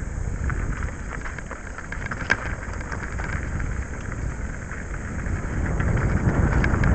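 Wind buffeting the microphone of a camera moving along a dry dirt trail, a steady low rumble with tyres rolling over dirt and scattered small clicks and rattles. A sharper click comes a little over two seconds in, and the rumble grows louder near the end.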